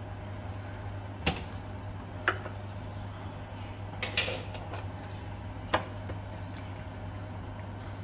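Several sharp clinks of a utensil against a metal cooking pot, with a short splashy rustle in the middle, as broth is ladled into a glass dish. A steady low hum lies underneath.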